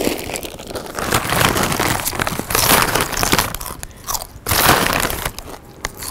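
Loud, exaggerated crunching of chips chewed from a bag, in irregular bites, with the bag rustling as it is handled.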